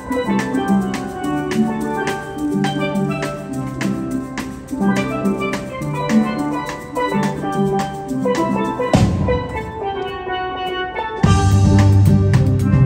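Steel band playing a tune on steel pans, many quick struck notes in a steady rhythm, with a drum kit keeping the beat. About nine seconds in a deep low rumble joins, louder near the end.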